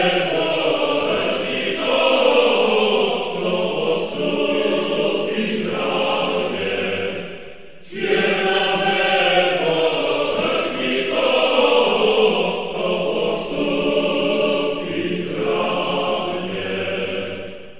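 Choir singing in long, sustained phrases; the passage dips and starts over about eight seconds in, and fades out near the end.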